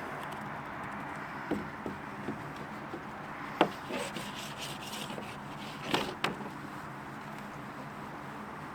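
A few sharp wooden knocks and taps, the loudest about a third of the way in and a close pair near the end, from work on the coop's wooden lid, over a steady rushing noise.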